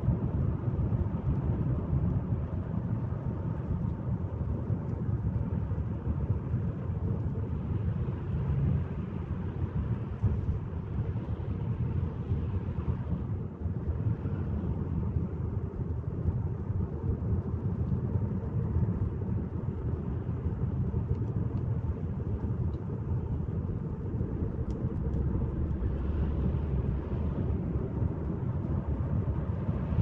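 Car cabin ambience while driving: a steady low rumble of engine and road noise heard from inside the car.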